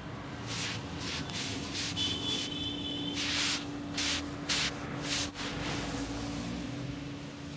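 Hands rubbing and kneading over a towel-covered back and shoulders during a massage: a run of short, hissy rubbing strokes that stop about five seconds in.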